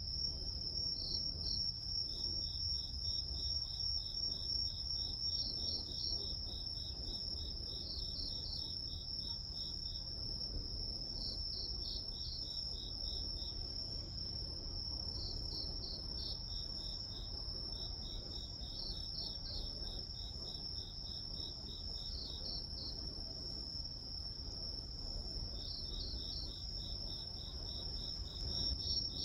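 Grass insects such as crickets calling: one insect holds a continuous high trill while others chirp in pulsed trains that start and stop every few seconds. A steady low hum lies underneath.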